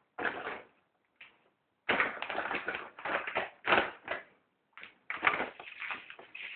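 Bichon Frise puppy scuffling on its mat while chewing and tossing a soft toy: irregular bursts of rustling and scuffling, busier from about two seconds in.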